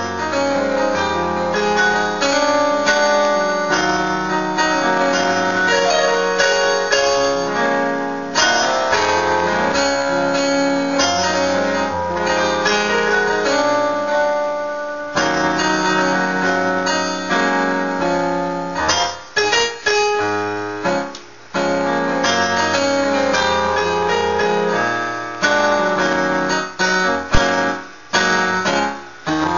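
Electronic keyboard played solo: full sustained chords over a low bass line, with short stabbed chords and brief pauses about two-thirds of the way through and again near the end.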